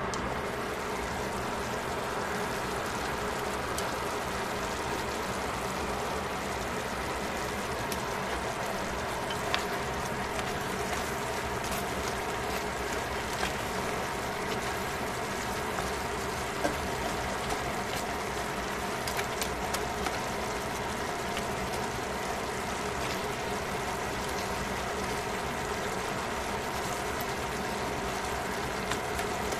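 Pork and vegetables in a thickened sauce simmering in an uncovered stainless pot: a steady simmering hiss over a low steady hum. A few light clicks come from chopsticks against the pot as the food is stirred.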